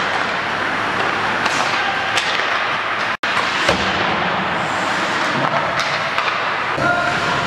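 Ice hockey practice: skates scraping across the ice under a string of sharp cracks and thuds as sticks hit pucks and pucks strike the goalie's pads. The sound cuts out for an instant about three seconds in.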